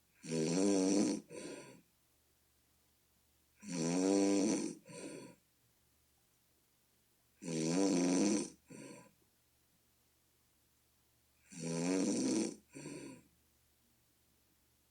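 A person snoring, which the snorer likens to a bullfrog: four snores about four seconds apart, each a long pitched snore of about a second followed at once by a shorter one.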